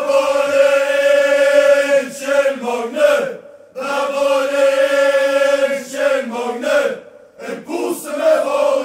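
A crowd of football supporters singing a chant in unison. It starts with two long drawn-out phrases separated by a short break, then shorter sung phrases near the end.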